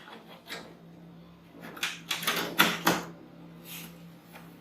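Sharp clicks and light knocks of a Wi-Fi expansion card being handled and fitted into the PC case's slot, with a quick cluster of several clicks about two to three seconds in.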